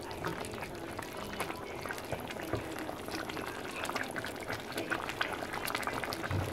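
Fish curry simmering in a pot, bubbling with many small pops, while a ladle scoops and pours the sauce.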